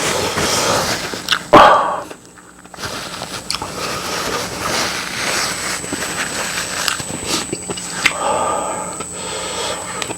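A person eating noisily, chewing and slurping, with a few sharp clicks and a short lull a couple of seconds in.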